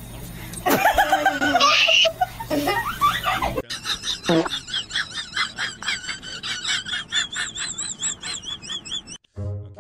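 Laughter. A loud burst of laughing and exclaiming in the first few seconds, then after a sudden cut a quick, high-pitched, rhythmic giggling that runs until near the end.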